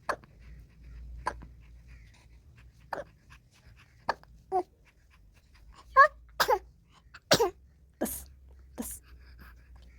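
Three-month-old baby making a string of about ten short, abrupt vocal sounds at irregular intervals, several of them squeaky. The loudest comes about six seconds in.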